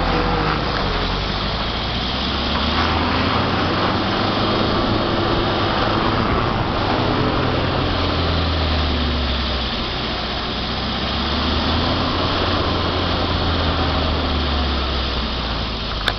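Volvo 245 wagon's engine heard from inside the cabin, running at low speed as the car rolls slowly. Its pitch rises and falls gently several times over a steady rush of road and wind noise.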